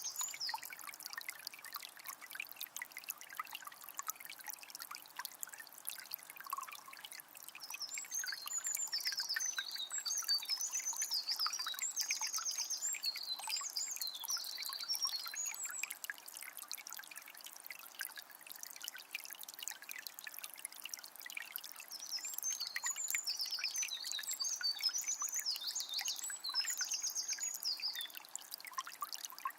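Water of a small spring trickling steadily, with a songbird singing in two long runs of quick high notes, from about a quarter of the way in to the middle and again near the end.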